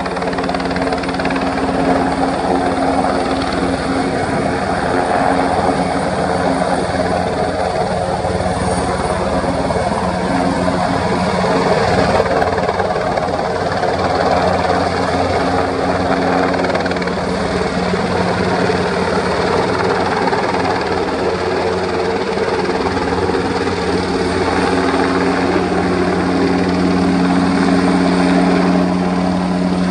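Military transport helicopter's rotors and turbine engines running steadily with a constant low hum, growing slightly louder near the end.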